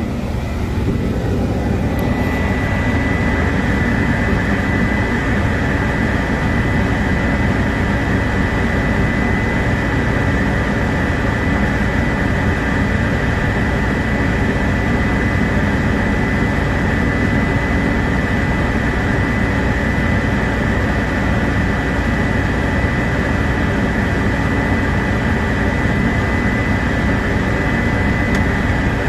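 Crane engine running steadily under load during a lift, heard from inside the crane cab, with a steady high whine over the engine noise; the sound builds about two seconds in and then holds level.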